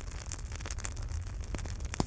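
Wood fire in a fireplace crackling, with frequent sharp, irregular pops and snaps over a low, steady rumble of the flames.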